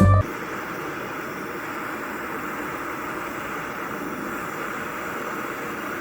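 Gas torch flame burning with a steady hiss while heating a steel part.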